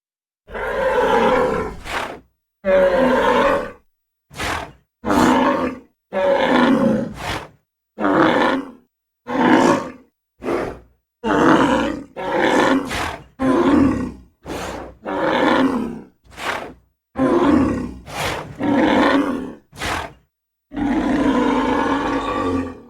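African buffalo calling: a string of about fifteen short, low grunts and bellows. Each is cut off cleanly into silence, and a longer bellow comes near the end.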